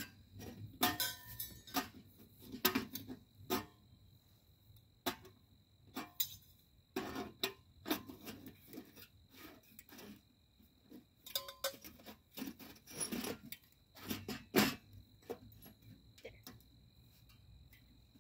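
Stainless steel wood-stove parts and flue pipe sections being handled and fitted together: irregular metallic clinks and knocks, a dozen or so spread through the stretch.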